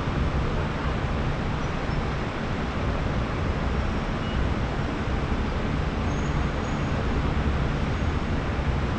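Steady, even city traffic noise from the streets below, a continuous blended wash with no single vehicle standing out.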